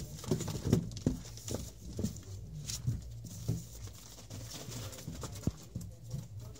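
Lancashire Heeler puppies scrabbling and bumping about in a cardboard box, their paws and claws making irregular scratches and knocks on the cardboard. The knocks are busiest in the first few seconds, then thin out.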